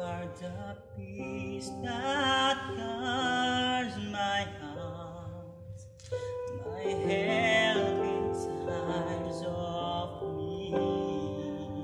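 A man singing a slow worship song, accompanied by an electronic keyboard playing sustained piano chords. He sings two phrases, wavering on held notes, with a short break about six seconds in.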